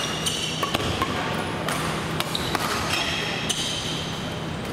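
Badminton doubles rally: sharp racket hits on the shuttlecock at irregular intervals, mixed with short high squeaks of court shoes on the gym floor.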